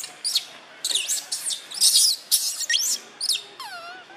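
Baby macaque crying: a rapid string of about a dozen short, high-pitched squeaks and squeals that sweep up and down. Near the end comes one longer, lower squeal that wavers as it falls.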